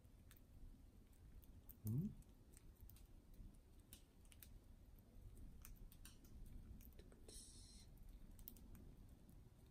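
Budgerigars cracking and husking seeds from a hand: faint, scattered little beak clicks. About two seconds in, a person makes one brief, low, rising voice sound.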